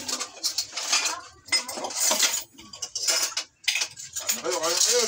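Dishes and utensils clinking and clattering, with a voice heard briefly near the end.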